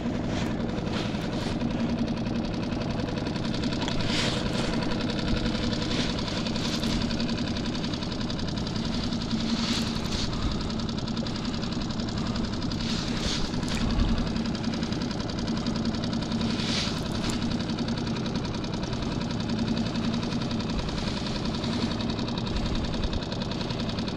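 Skiff's outboard motor idling steadily, with short hissy bursts every few seconds.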